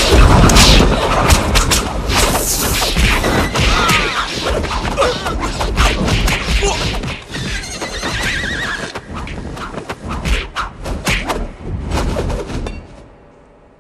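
Horses whinnying several times over a dense clatter of sharp strikes and hooves. The din drops away abruptly near the end.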